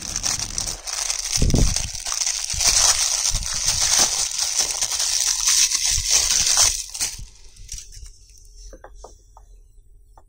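Clear plastic wrapping crinkling loudly as it is torn off a silicone pop it fidget toy, stopping about seven seconds in. Near the end, a few soft pops as the silicone bubbles are pressed.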